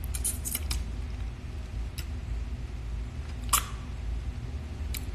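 A few sharp clicks and taps over a steady low rumble: a quick cluster in the first second, then single clicks about two, three and a half and five seconds in.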